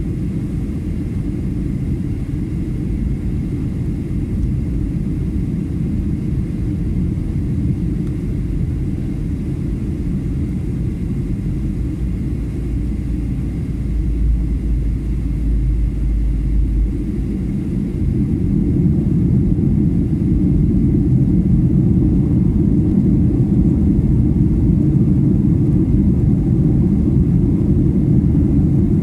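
Steady low rumble of a Boeing 737 airliner's engines and airflow heard from inside the passenger cabin while climbing after takeoff, growing a little louder about two-thirds of the way through.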